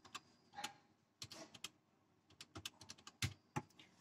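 Keys of a desktop electronic calculator being pressed: a series of faint, irregular plastic clicks as a multiplication is keyed in.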